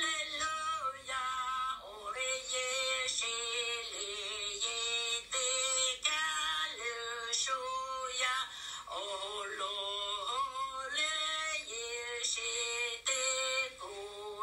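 A single voice singing a slow melody, holding each note for up to about a second and stepping between pitches.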